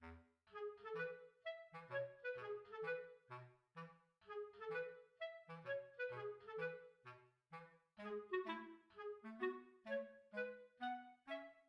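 Background music: a bouncy woodwind melody of short staccato notes over a bass line.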